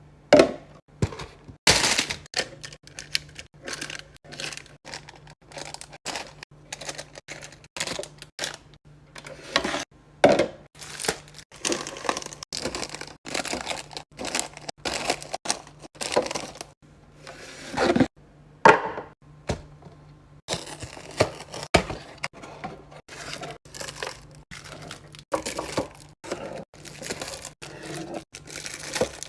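Packaged snacks and drinks being handled and set into a fridge: a dense run of sharp clicks, knocks and plastic-wrapper crinkles, with a low steady hum underneath.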